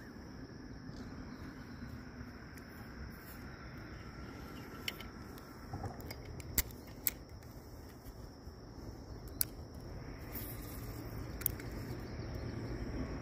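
Quiet riverside ambience: a steady high insect drone, with a handful of sharp clicks and taps, two close together about halfway through, and a low rumble building near the end.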